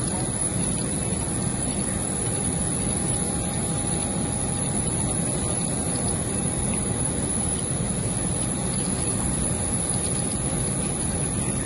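Steady low roar of a jet aircraft's turbine running on the apron, with a thin high whine held over it.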